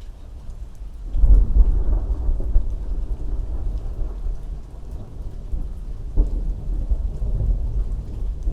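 A thunderclap breaks about a second in and rolls on as a deep rumble that slowly fades, then swells again near six seconds, with steady rain throughout.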